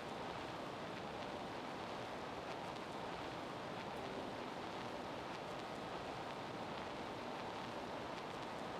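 Steady, even background hiss with no speech, and a few faint ticks here and there.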